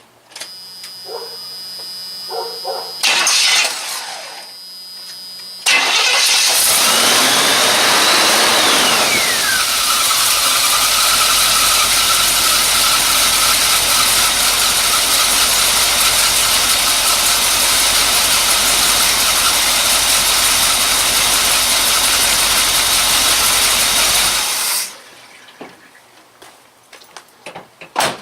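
1984 Chevy K20 pickup engine being started on fresh oil right after an oil change. It fires about six seconds in, with a whine that rises and then falls as it catches. It then runs steadily for about eighteen seconds and is switched off abruptly.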